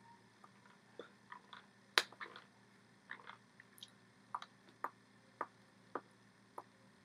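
About a dozen soft, irregular slaps and clicks of hands striking each other and the body while signing, the sharpest about two seconds in, over a faint steady hum.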